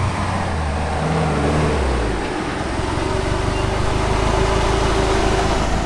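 Avtoros Shaman 8x8 all-terrain vehicle driving on sand. Its diesel engine's note shifts and drops about two seconds in, then settles into a steady drone with a constant whine as it passes close by.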